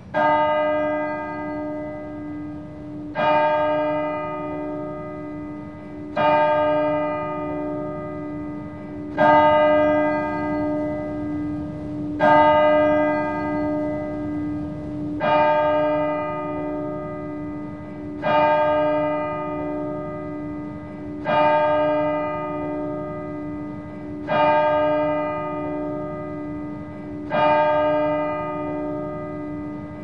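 Merton College clock bell striking twelve: the first ten of the twelve strokes, slow and even about three seconds apart, each ringing on with a lingering hum into the next stroke.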